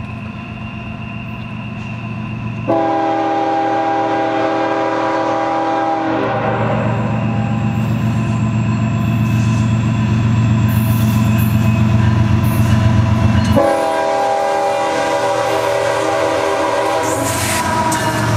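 CSX diesel locomotive leading a coal train, its engine rumbling as it approaches, sounding two long blasts on its multi-note air horn, the first about three seconds in and the second about ten seconds later. Near the end the locomotive passes close by with wheel and rail noise.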